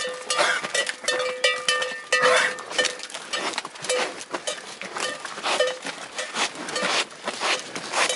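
A herd of cows walking on a concrete lane: irregular hoof clops, with bells clanking in short ringing notes of the same pitch over and over.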